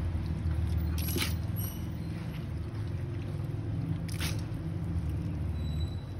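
Soaked mixed split lentils tipped into a steel pressure cooker pot, landing in two brief batches about a second in and about four seconds in, over a steady low hum.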